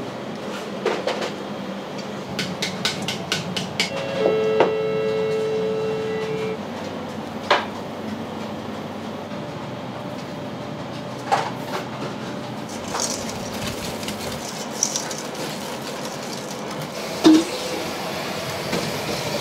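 Kitchen work noise: a steady background hum of equipment with scattered clicks and knocks. A steady machine tone comes in about four seconds in and lasts about two seconds.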